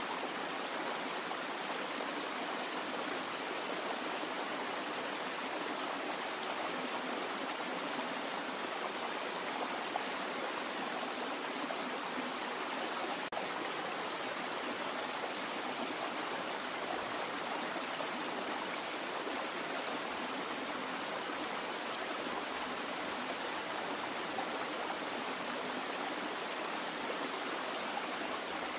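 Water in a stream, flowing steadily with an even rushing.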